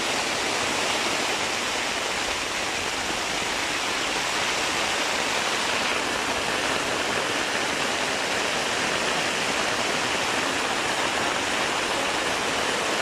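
Heavy rain falling steadily on a tent's roof, heard from inside the tent as an even, unbroken hiss of drops.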